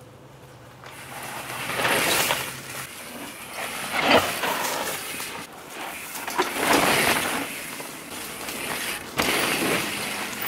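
Downhill mountain bike's tyres rolling and crunching over a dry dirt trail, rising and falling in several swells as the bike passes by and drops down the banks.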